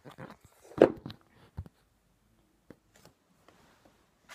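Handling noises: a few knocks and rustles, with one loud thump just under a second in, then only a few faint ticks.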